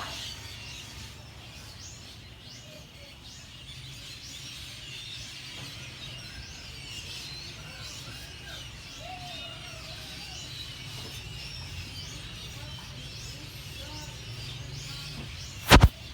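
A flock of small birds chirping, many short high chirps overlapping throughout over a steady low rumble. A loud sharp double click comes near the end.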